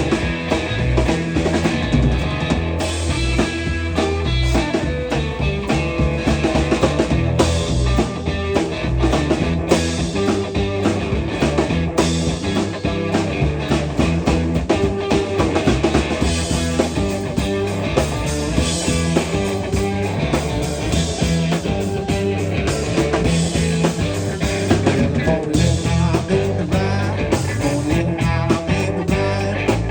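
Live blues-rock trio playing an instrumental stretch: guitar over a steady drum-kit beat, with no singing.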